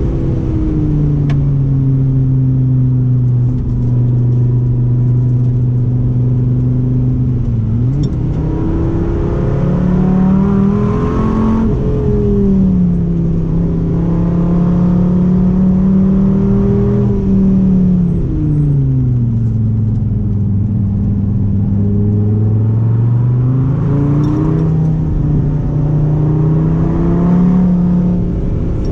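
Dodge Viper V10 engine on track, its note rising hard under acceleration about a third of the way in and again near the end, holding steady between, and falling away as the car slows in the middle.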